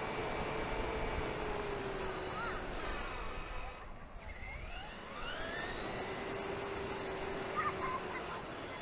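Electric motor of a Traxxas E-Maxx RC monster truck whining at speed. It eases off about three seconds in, then the pitch rises again as it accelerates, over a steady hiss of wind and tyre noise.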